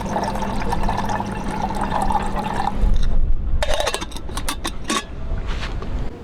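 Liquid being poured into a container, then about a second later a quick run of sharp clicks or knocks.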